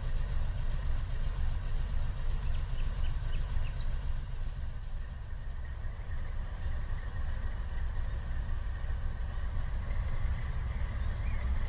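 Two diesel freight locomotives idling with a low, steady rumble. A few faint high chirps sound about three seconds in.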